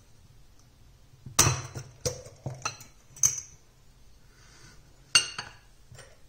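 Kitchen dishes and utensils clinking and knocking: a handful of sharp clinks with a short ringing tail, the loudest a little over a second in, about three seconds in and about five seconds in.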